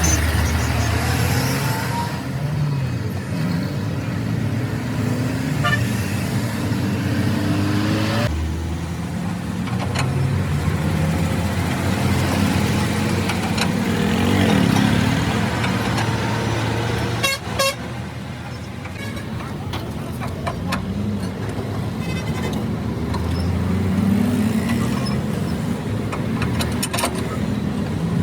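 Motor vehicle engines running, with horns sounding.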